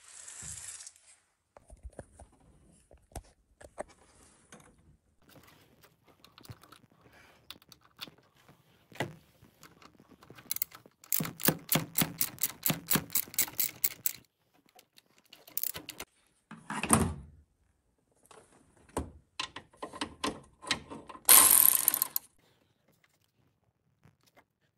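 Ratchet wrench clicking quickly, about five clicks a second for some three seconds, as it turns a bolt on the engine. Scattered knocks of tools on metal come before and after, with a louder clatter near the end.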